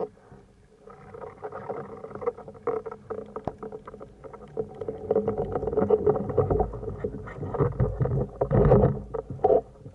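An unidentified steady hum heard underwater, with a few overtones, over many small clicks and crackles. It grows louder from about a second in, with strong deep swells in the second half.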